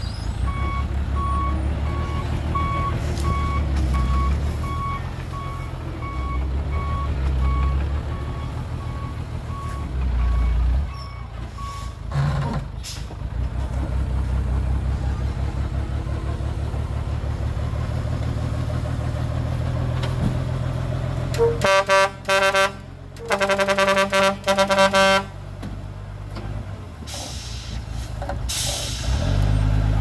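Dump truck's diesel engine running, with its reversing alarm beeping steadily for the first twelve seconds or so. About two-thirds of the way in, a truck horn sounds in several short blasts, and near the end comes a hiss of air like an air-brake release.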